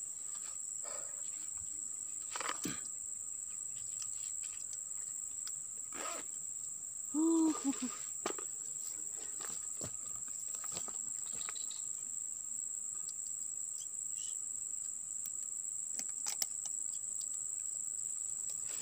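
Insects droning with one steady high-pitched tone, with scattered light clicks and rustles. About seven seconds in, a short pitched sound rises and falls, the loudest moment.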